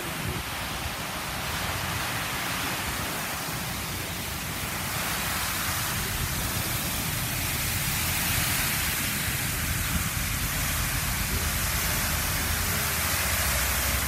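Steady rushing hiss of a tall waterfall and its spray pounding onto the water below, with a low rumble underneath; it grows a little louder about halfway through.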